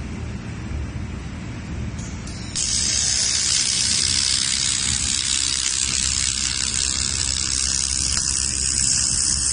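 Handheld 500 W laser welder welding stainless steel: a loud, steady hiss starts abruptly about two and a half seconds in and holds, over a low hum.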